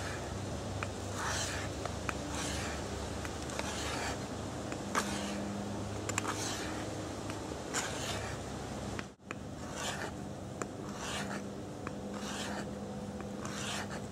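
Knife blade scraping thin shavings off the outside of a bamboo section to make tinder, in regular downward rasping strokes about one every second and a quarter.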